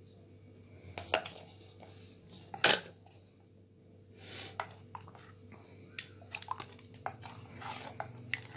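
Plastic spoon stirring thin raita in a steel bowl, knocking and scraping against the metal side. The sharpest knock comes about two and a half seconds in, with lighter clicks through the second half.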